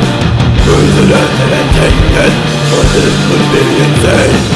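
Death metal recording played loud: heavily distorted electric guitars over held low notes.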